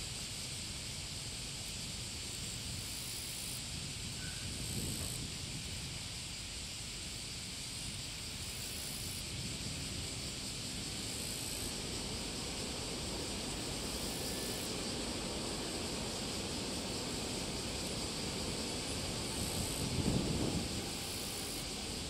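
Steady rushing noise of a Boeing 777 airliner rolling out on the runway after touchdown, heard from a distance, mixed with strong wind buffeting the microphone in low rumbling gusts, the strongest about twenty seconds in.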